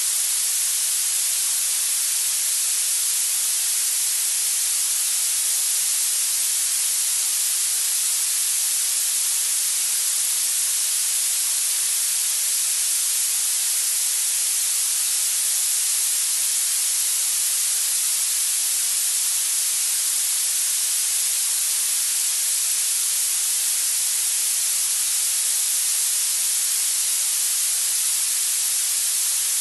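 Steady, unbroken hiss of masking noise used as tinnitus sound therapy, bright and treble-heavy with no change in level or pitch.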